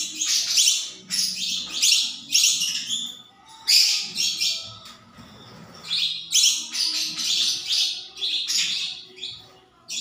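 Young budgerigar being hand-fed, giving raspy high-pitched begging chirps in quick runs of bursts, with a short lull around the middle.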